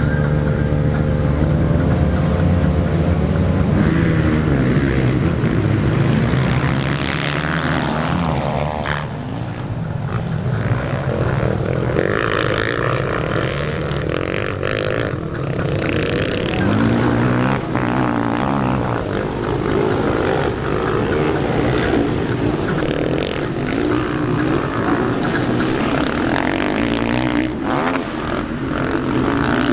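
Several 250–450 cc motocross bikes racing, their engines revving up and down in pitch as they accelerate through the bends and over the track.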